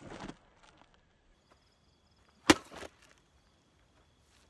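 A folded-steel jian sword slicing through a rolled cardboard target: one sharp cut about two and a half seconds in, with the fading end of an earlier cut at the very start.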